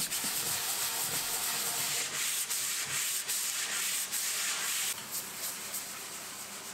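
Hand sanding of a bare wooden veneer cabinet top with an abrasive pad: a steady scratchy rasp of strokes that turns quieter about five seconds in.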